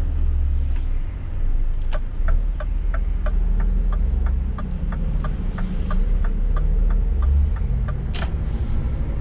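Scania S500 truck cab on the move: a steady low diesel drone, with a regular light ticking at about three a second for several seconds and a few brief hisses.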